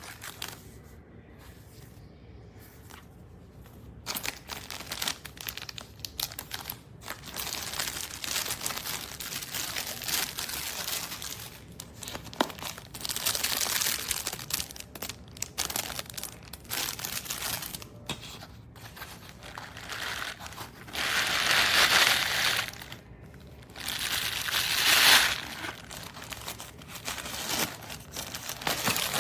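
Plastic packaging crinkling and rustling in irregular handling noises, beginning about four seconds in. Two louder stretches come near the end.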